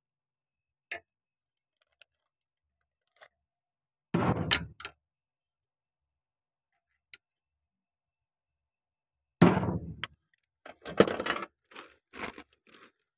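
Metal parts clinking and clattering in short bursts, once about four seconds in and several times near the end, as a tractor clutch pressure plate assembly and its small bolts are handled.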